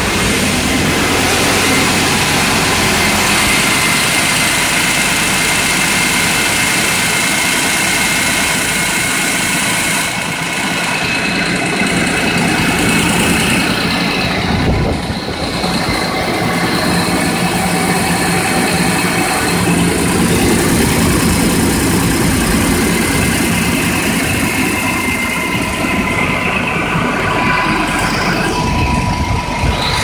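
Land Rover Range Rover P38's 4.6 V8 engine idling steadily just after starting, with a noise that the owner suspects may be a spun bearing but is not sure.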